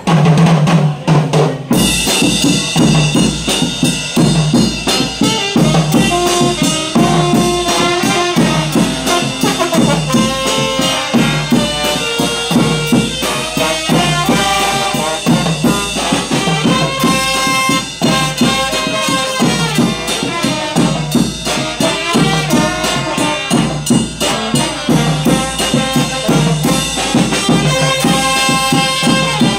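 A Vietnamese funeral brass band strikes up: saxophone and trumpets play a melody over a drum kit keeping a steady beat.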